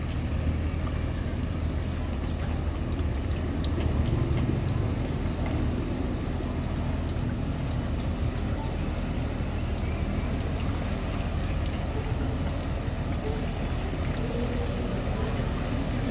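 A small wooden boat's engine running at a steady drone, with water sounds beneath it.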